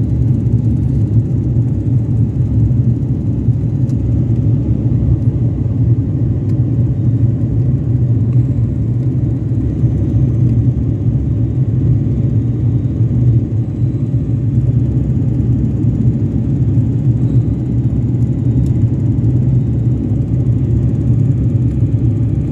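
Steady low drone inside an airliner cabin in flight: engine and airflow noise heard from a window seat.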